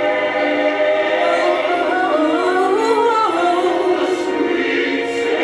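Gospel choir singing a long held chord, with one voice weaving a winding melodic run over it from about two seconds in.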